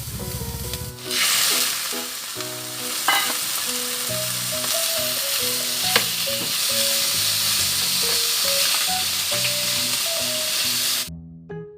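Food frying in a hot pan, a steady loud sizzle with a couple of sharp clicks. It starts about a second in and cuts off suddenly near the end.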